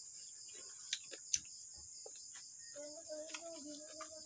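Crickets chirping in a steady high-pitched chorus, with a few light clicks about a second in and a short low closed-mouth hum during the last second and a half.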